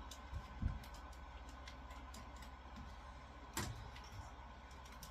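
Faint steady hum with scattered light ticks and clicks, a soft low thump under a second in, and a sharper click about three and a half seconds in.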